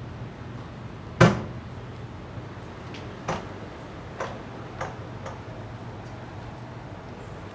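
A wooden door being opened, with one sharp knock about a second in, then four lighter clicks over the next few seconds, over a low steady hum.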